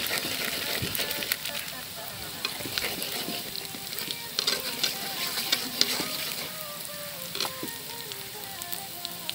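Sliced onions frying in hot oil in a wide metal karahi, sizzling steadily. A metal spatula scrapes and clacks against the pan as spices are stirred in, the clacks thickest in the middle of the stretch.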